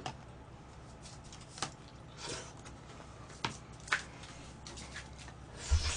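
Scattered light clicks and short rustles of plastic delivery food containers and packaging being handled on a table, with a louder rustle and a couple of low thuds near the end.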